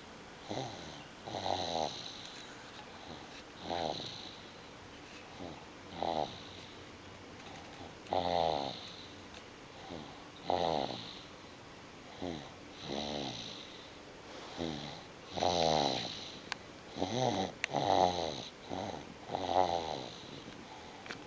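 Snoring in deep sleep: short pitched snores repeating irregularly about every two seconds, some in quick pairs, getting louder in the second half.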